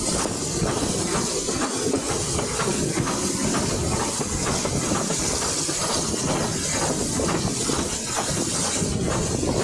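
Steam locomotive hauling a train, heard from the window of a coach behind it: exhaust beats in a quick, even rhythm over the rumble and clatter of the coaches' wheels on the rails.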